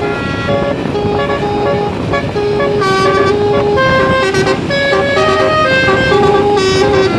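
Bus 'basuri' telolet horn, a set of multi-note air horns, playing a quick tune of stepped, sustained notes over engine and traffic noise.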